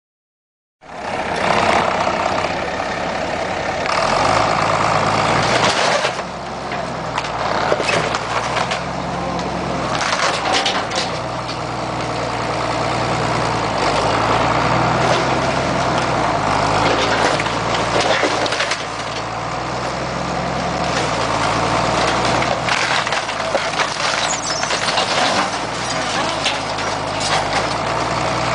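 A tractor's engine running under heavy load as it pushes down a wooden house, with wood cracking and splintering throughout. The sound starts about a second in.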